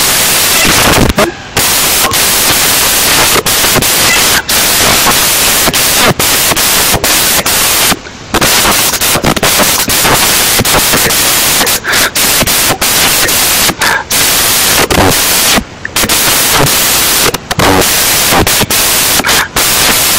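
Very loud, harsh static-like noise from a fault in the screen recording's audio, with short dropouts now and then.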